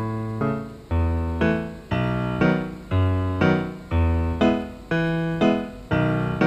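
Background piano music: a steady run of struck notes and chords about twice a second, each ringing and dying away before the next.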